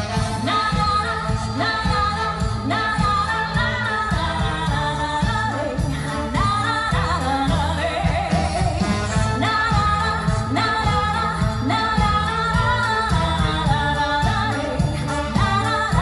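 A woman sings a lyrical song with a small live orchestra of strings and brass, over a steady beat in the bass.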